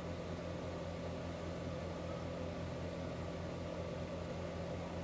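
Industrial sewing machine's motor running steadily with a low hum and a faint, even pulsing.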